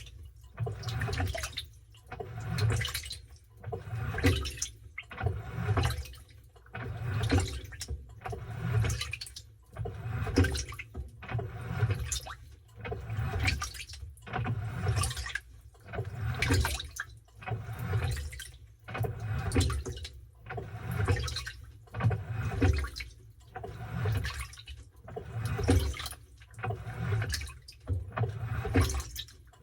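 Washing machine in its wash cycle, towels and water sloshing in the drum in even, repeating surges, one about every second or two.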